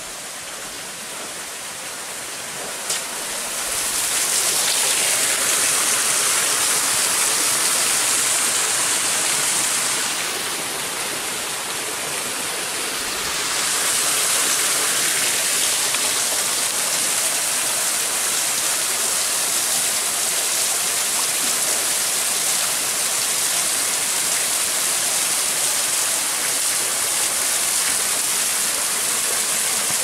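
Small waterfall cascading down rocks: a steady rushing of water that grows louder about four seconds in, eases briefly, then comes back and holds.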